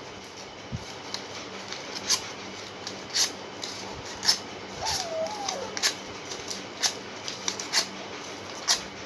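Scissors snipping through folded craft paper, a series of separate sharp snips about one a second.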